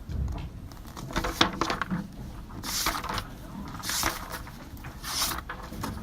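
Quiet library study-space ambience: a cluster of small clicks and taps about a second in, then three short swishes a little over a second apart.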